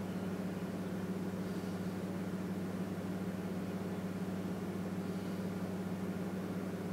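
Steady low mechanical hum with a light hiss, unchanging throughout.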